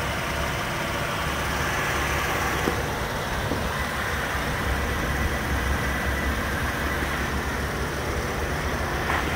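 Chevrolet Traverse's V6 engine idling steadily, heard with the hood open.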